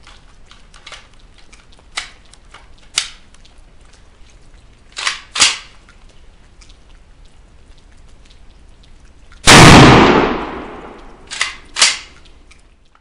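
A single shot from a VEPR rifle in 7.62x54R, very loud, with a long echo trailing off over about two seconds, about nine and a half seconds in. Shorter, quieter sharp cracks come singly and in quick pairs before it and twice more just after.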